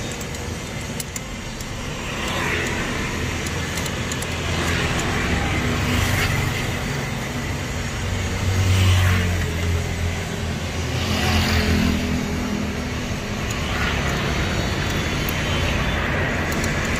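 Tata Vista's turbo-diesel engine running with the bonnet open, its revs rising and falling every two to three seconds as the injection pump's throttle lever is worked. The engine is being checked after its accelerator wire and pump setting were adjusted.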